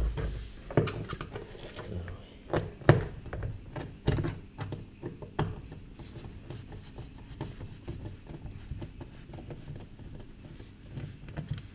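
A screwdriver and hands working at the plastic inner door trim panel of a Peugeot 301: a series of sharp clicks and knocks of tool on plastic in the first half, then softer scratching and handling noise.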